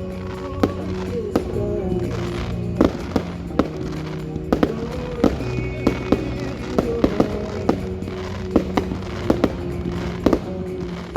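Display fireworks going off in a string of sharp, irregular bangs, roughly two a second, over music with singing.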